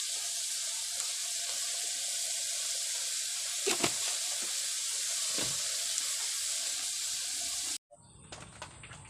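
Snails cooking in a wok, sizzling with a steady hiss and a couple of brief louder pops around the middle. The sizzling cuts off abruptly near the end, leaving a faint thin high whine and a few light clicks.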